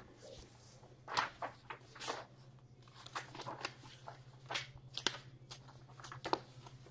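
Faint, scattered clicks and knocks, as from handling things at a desk, over a steady low hum.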